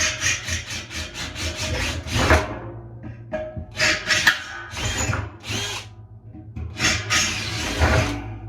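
Power drill boring into the soft metal of a tumble dryer's rear drum fixing. It runs with a rapid stuttering chatter for about the first two seconds, then in three or four short bursts with pauses between.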